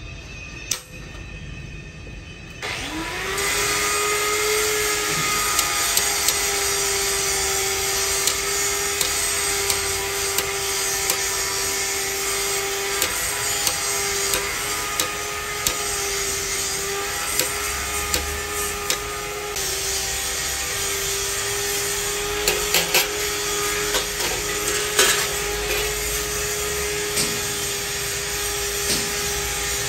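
Irregular sharp taps of a hand hammer on a steel punch, engraving outlines into a steel plate. Under them, an electric motor spins up about three seconds in and then runs at a steady whine with a hiss.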